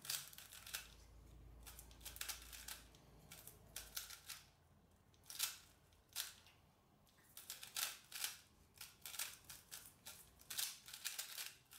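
GAN 356i 3x3 smart cube being turned quickly during a speedsolve: runs of rapid plastic clicks and clacks as the layers snap round, broken by short pauses.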